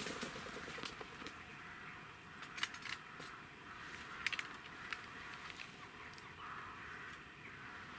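Faint open-air background noise with a few brief clicks and rustles, about two and a half and four seconds in.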